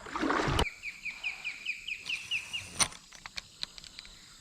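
A short burst of noise, then a bird calling a quick run of about a dozen short, slightly down-slurred chirps, about six a second, for some two seconds. A sharp click follows about three seconds in.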